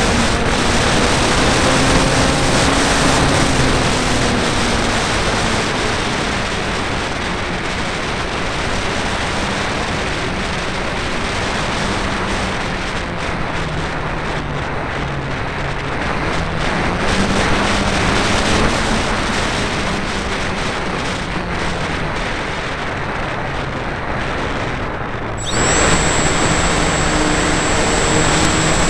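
Motor and propeller of a flying wing model aircraft heard from its onboard camera in flight, under heavy wind rush, the motor's pitch slowly rising and falling with throttle. About 25 seconds in the sound changes abruptly and a steady high whine sets in.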